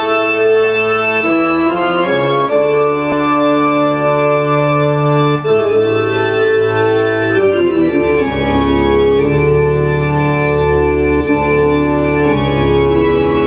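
Live band playing an instrumental intro led by sustained organ chords from an electronic keyboard, with a bass line underneath. The chords change every second or two, and the low end grows fuller about eight seconds in.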